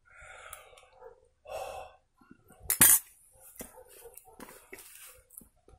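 A man eating from a metal pot: breathing and chewing, with small clicks of a spoon against the pot, and one sudden loud hiccup about three seconds in.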